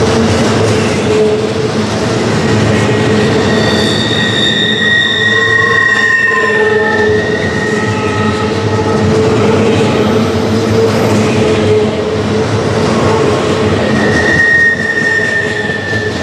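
Steel wheels of double-stack intermodal well cars rolling past close by on a curve: a steady loud rumble and clatter, with high-pitched wheel squeal that swells about four seconds in and again near the end.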